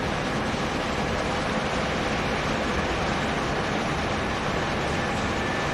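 Emirates Airbus A380's jet engines running at low power as the aircraft turns on the ground: a steady rushing noise with a faint high whine.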